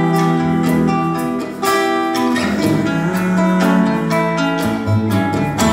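Instrumental break of a live band: guitar strumming in a steady rhythm under held melodic notes, with no singing.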